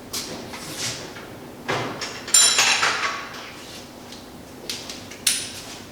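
Metal hand tools clinking and clattering while a toolbox is rummaged for a wrench, with a series of sharp knocks. The loudest, ringing clatter comes about two and a half seconds in, and another clink near the end.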